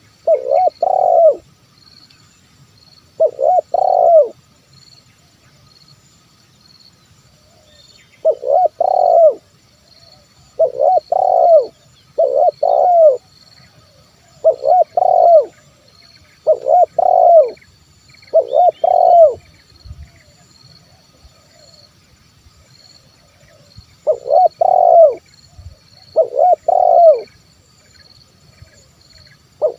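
Spotted dove cooing: about ten short phrases of several low coos each, separated by pauses of a few seconds. This is the dove's advertising song, used as a lure to call wild spotted doves.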